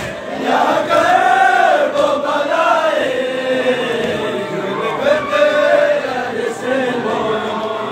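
Men's voices chanting a Balti noha, a Shia lament, together in a slow melody that rises and falls.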